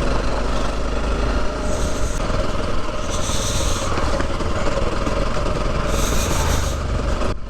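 Off-road motorcycle being ridden on a dirt trail: the engine runs steadily under a loud rush of wind and trail noise on a helmet-mounted action camera's microphone. Two brief hissing surges come about three and six seconds in.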